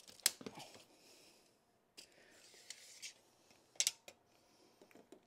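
A tape measure handled against carpet underpad and a stair nose: soft rubbing and scraping as the blade is laid over the pad, with a few sharp clicks, the loudest one just under four seconds in.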